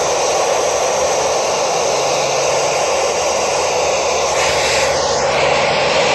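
Steady hiss of static from a handheld ham radio's speaker, its squelch open with no voice signal coming through from the ISS.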